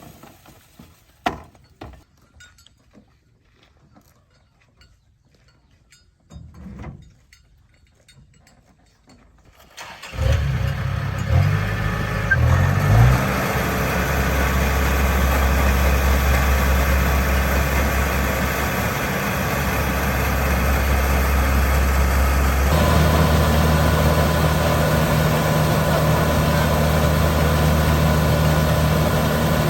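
A few light clicks and knocks, then, about a third of the way in, a combine harvester's diesel engine starts abruptly. It runs unevenly for a couple of seconds, then settles into steady running. Just over two-thirds of the way in, its note steps up to a higher speed and holds there.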